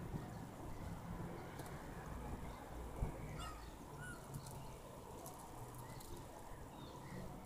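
Gulls calling overhead: a few short cries, the clearest a little past three seconds in, over a low steady outdoor rumble. A single sharp knock just before the first cries.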